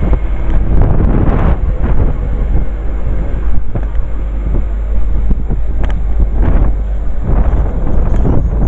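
Strong wind buffeting the microphone in irregular gusts, a heavy low rumble that surges and falls every second or so.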